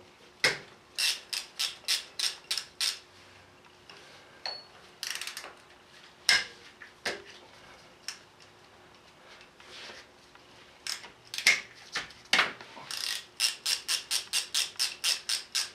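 Hand ratchet wrench clicking in quick runs of about four to five clicks a second, with pauses between runs, as the 10 mm bolts on a Cummins diesel's gear cover are backed out.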